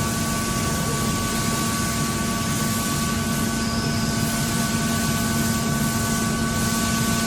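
Steady machine drone: an even rushing noise with a constant low hum and a few fixed higher tones, unchanging throughout, typical of machinery running in a workshop.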